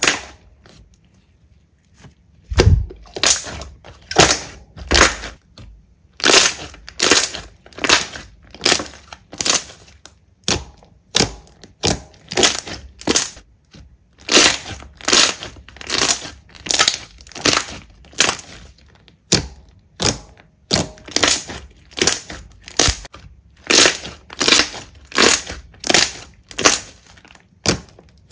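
Glossy slime being pressed and kneaded by fingers and palms, giving repeated sharp pops and squelches about two a second after a quiet first two seconds.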